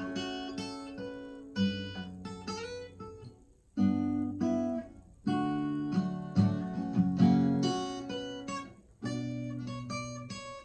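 Background music: an acoustic guitar playing plucked notes and chords that ring and fade, in phrases with brief pauses between them.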